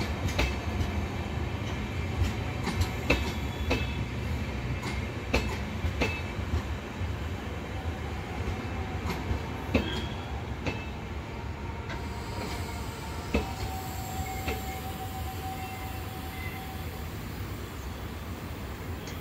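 New LHB passenger coaches rolling past: a steady low rumble broken by sharp clicks of the wheels over rail joints at uneven intervals. A faint steady squeal comes in partway through, and the sound eases off slightly toward the end.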